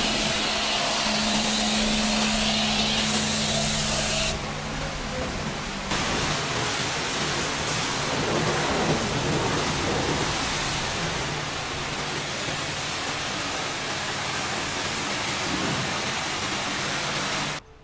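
Steady rushing hiss of pressure-washing equipment with a low motor hum, while a long-handled brush scrubs foam over the metal walls of a livestock truck's trailer. The hiss drops about four seconds in, returns about two seconds later, and cuts off abruptly at the end.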